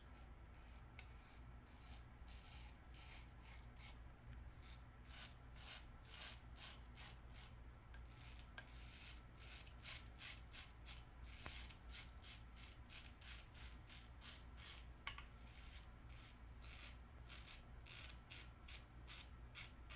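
Single-edge safety razor (Superior Lather Catcher with a GEM PTFE blade) scraping through lathered stubble, faint, in many short rasping strokes.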